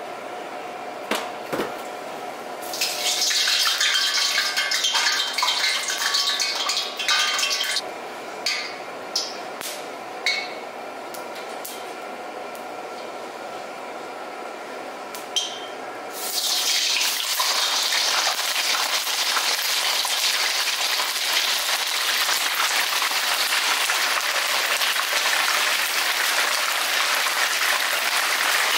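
Croaker frying in hot oil in a wok: a loud, steady sizzle that starts a little over halfway through, when the fish goes into the oil, and keeps on evenly. Before it come a few seconds of hissing and a few light clinks.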